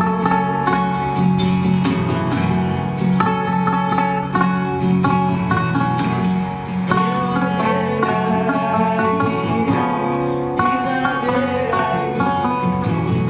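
Two acoustic guitars playing an instrumental passage together, with plucked, ringing notes and no sung lyrics.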